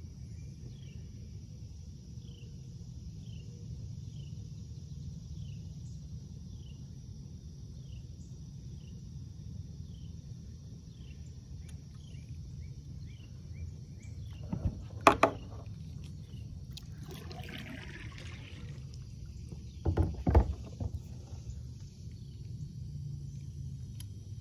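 Open-air ambience on a lake: a steady low rumble of wind or water, a faint steady insect hum, and a small creature's short falling chirp repeated about once a second. Two loud clusters of knocks, like gear bumping the kayak, come about 15 and 20 seconds in.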